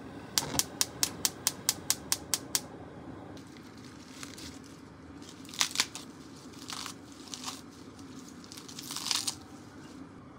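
A quick run of about a dozen sharp, even clicks for the first two seconds or so. Then crisp rustling and crinkling of fresh lettuce leaves, handled and lifted out of a salad spinner into a glass bowl.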